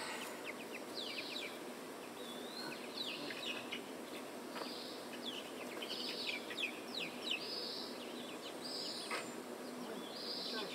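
Chickens peeping and chirping: many short, high calls that fall in pitch, several a second, overlapping one another.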